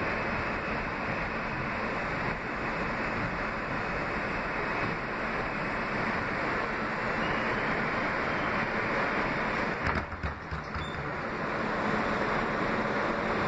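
Kawasaki R160B subway car running at speed through a tunnel: a steady rushing noise of wheels on rail and the car's running gear, briefly uneven with a few knocks about ten seconds in.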